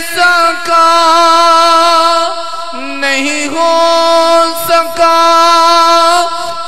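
A man singing an Urdu hamd (a hymn of praise to God) through a microphone, holding long, ornamented vowels with no words between them. The pitch steps down for about half a second near the middle, then returns.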